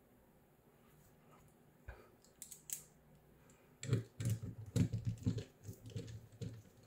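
Irregular clicks and knocks of a plastic 3D-printed motor mount being handled while a precision screwdriver turns a small screw into its metal bracket. A few clicks come about two seconds in, and the clicking gets busier from about four seconds.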